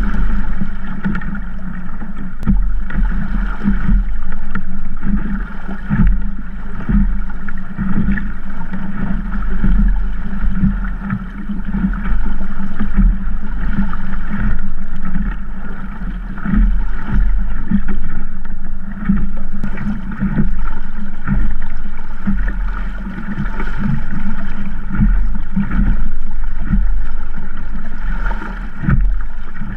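Wind buffeting the microphone and water rushing and slapping against the hull of a small Sabot sailing dinghy under way in a 10–15 knot breeze. The noise rises and falls with the gusts, with frequent short slaps of chop on the hull.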